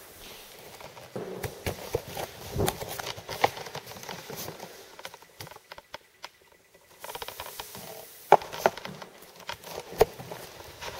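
Irregular clicks, taps and scuffs of a T-bar floor-finish applicator being worked along a hardwood floor, with a quieter spell about halfway through.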